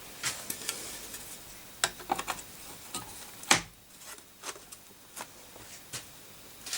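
Scattered light clicks and taps of small hard objects being handled, about ten in all, the loudest about three and a half seconds in.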